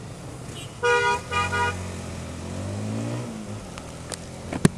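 A vehicle horn honks twice in quick succession. Then the Honda CB150R's single-cylinder engine pulls away, its pitch rising and then falling off about three seconds in. A sharp knock comes near the end.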